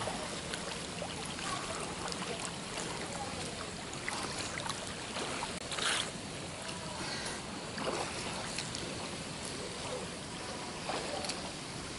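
Water splashing and churning from a swimmer's freestyle arm strokes and kick, with a louder splash about six seconds in.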